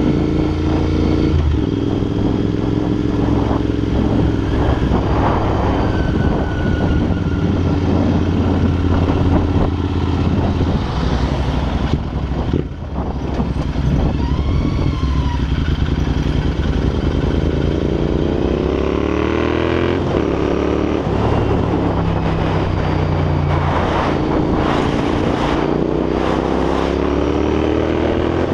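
Royal Enfield INT650's 648 cc parallel-twin engine running through Red Rooster aftermarket exhausts while riding. The note holds steady, drops briefly off the throttle about halfway through, then rises in pitch twice as the bike accelerates.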